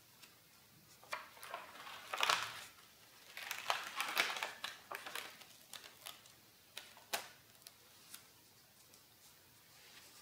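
Sketchbook page being turned by hand: the ink- and paint-stiffened paper rustles and crinkles in a couple of swishes about two to five seconds in, followed by a few light ticks and taps as the pages are smoothed down.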